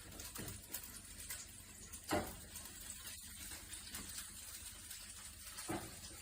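Faint handling noises from an electric grain grinder being handled: a sharp knock about two seconds in and a softer one near the end, over a steady low hiss.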